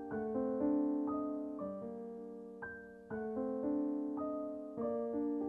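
Background piano music, with notes and chords struck every half second or so and left to ring and fade.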